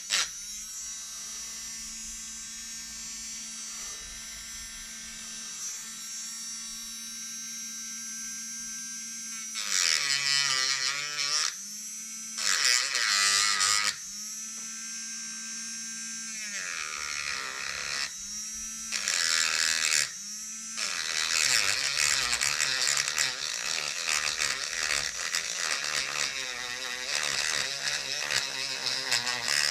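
Cordless rotary tool running with a steady motor whine for the first ten seconds or so. It then bogs down in repeated louder bursts of grinding, its pitch dropping and wavering as the bit is pressed to the work, almost without a break in the last third.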